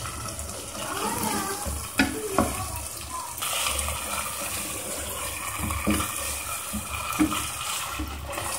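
Chicken pieces sizzling and frying in a thick masala in a non-stick pan, stirred and scraped with a spatula. The spatula knocks against the pan a couple of times about two seconds in. This is the bhuna stage: the liquid has cooked off and the chicken is being fried dry.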